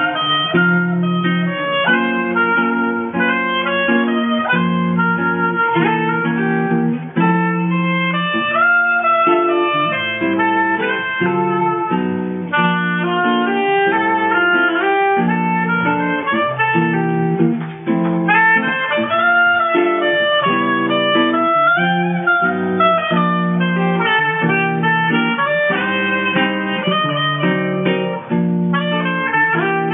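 Oboe playing a sustained, gliding melody over acoustic guitar chords, live.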